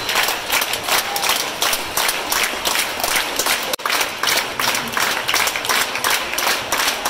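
Theatre audience applauding a ballet curtain call: dense, steady clapping from many hands.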